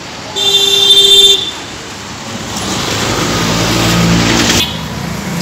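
Street traffic: a vehicle horn sounds steadily for about a second near the start, then a vehicle engine grows louder and cuts off suddenly near the end.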